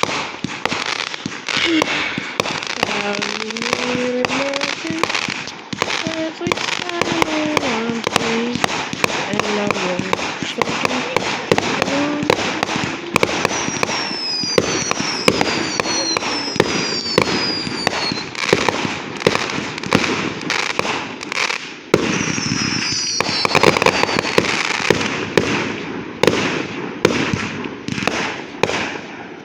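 Fireworks finale: a dense, continuous barrage of crackling bangs and pops, with high whistles falling in pitch twice, midway and again later.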